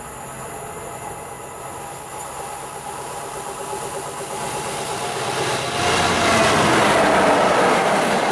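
EWS Class 66 diesel-electric locomotive, with its two-stroke V12 engine, approaching at the head of a freight train, its engine note growing steadily louder. About six seconds in it passes close by and the sound jumps to a loud rush of engine and wheel-on-rail noise.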